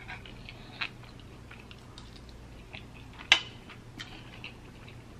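Quiet eating sounds from a seafood meal: chewing, with scattered small clicks of fork and shell on the plate, the sharpest about three seconds in.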